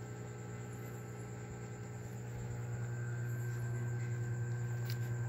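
Steady low electrical hum of room background noise, a little louder in the second half, with a few faint clicks near the end.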